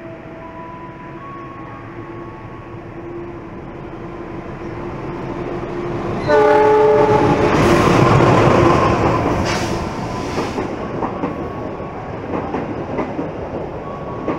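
GE CM20EMP (CC206) diesel-electric locomotive hauling a passenger train past at close range. Its rumble grows as it approaches, and it gives a short horn blast about six seconds in. The locomotive then passes loudly and the coaches follow, their wheels clattering over the rail joints.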